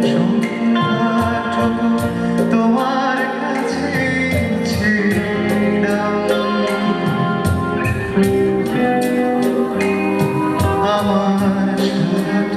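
Music: a song with a singing voice over instrumental accompaniment and a steady percussive beat.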